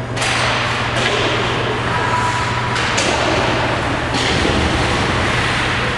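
Ice hockey play: skates scraping the ice and several sharp clacks and thuds from sticks, puck and boards, over a steady low hum.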